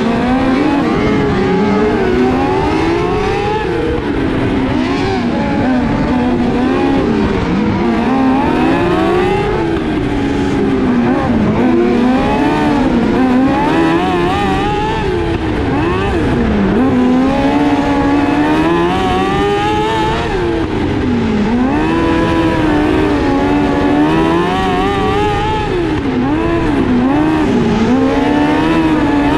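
Onboard sound of a small dirt-track race car's engine at racing speed, its pitch climbing down the straights and dropping into the corners every few seconds.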